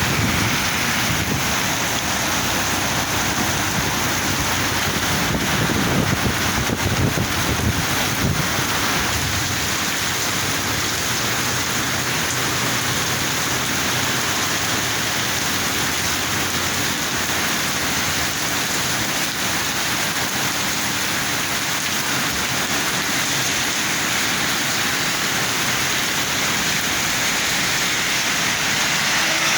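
Heavy rain pouring down steadily in a dense, even hiss, with a brief low rumble about six seconds in.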